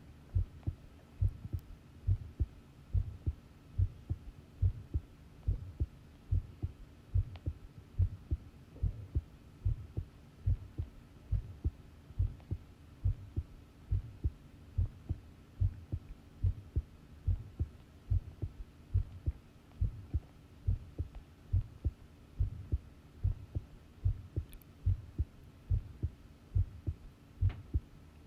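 Human heartbeat recorded close up, a steady, even rhythm of paired low lub-dub thumps, over a faint steady hum.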